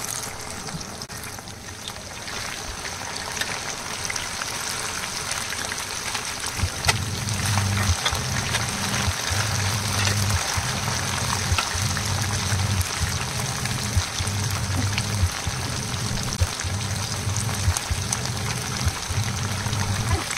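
Potato-coated butterfly chicken pieces deep-frying in hot oil: a steady sizzle with fine crackles that grows louder over the first few seconds. A low, steady beat of background music comes in about seven seconds in.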